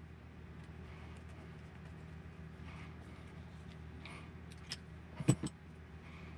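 Metal hand tools handled at a workbench: faint light handling noises, then a few sharp metallic clacks a little over five seconds in, as an adjustable wrench and hex drivers are set down on a rubber work mat. A steady low hum runs underneath.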